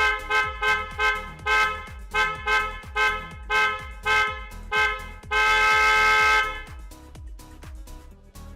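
TST-brand Hella-type electric car horn sounded in a quick series of short toots, about two or three a second, then held for one long blast of about a second. Background music with a beat continues underneath and carries on alone after the blast.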